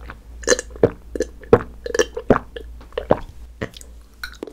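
Close-miked gulping and swallowing while drinking from a glass jar mug: a series of wet gulps, about two a second.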